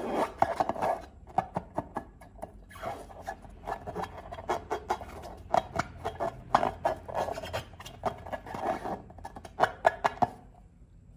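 Slime being squeezed and worked by hand, with irregular wet clicks and crackles; it stops a little before the end.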